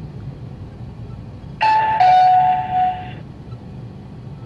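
Two-note electronic chime, a higher note then a lower one, lasting about a second and a half, heard inside a driving-test car over the steady hum of the car running.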